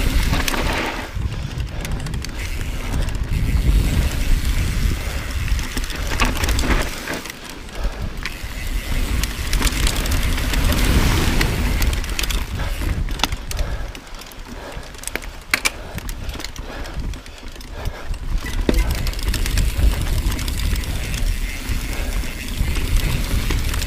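Mountain bike riding down a dirt singletrack: a steady low rumble of the tyres rolling over dirt, with sharp clicks and rattles from the bike over bumps, most of them about halfway through.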